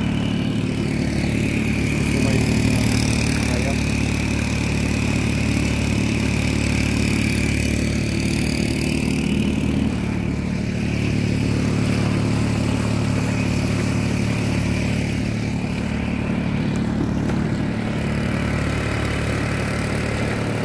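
Small four-stroke gasoline engine of a motorized kayak running steadily under way, pushing the kayak along at speed, with a steady hiss over it.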